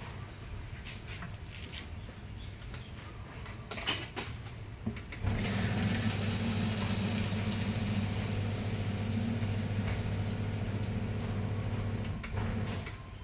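A few light clicks and knocks, then a motor starts abruptly about five seconds in, hums steadily for about seven seconds and stops.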